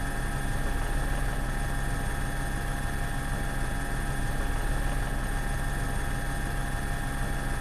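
A steady mechanical drone with a hiss and several constant hums, unchanging throughout.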